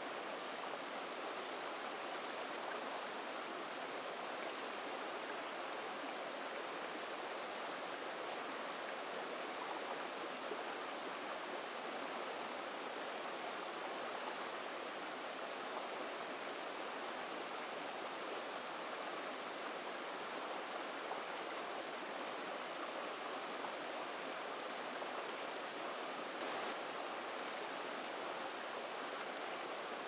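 Shallow rocky stream running steadily over and between stones in small riffles, an even rushing water sound that does not change.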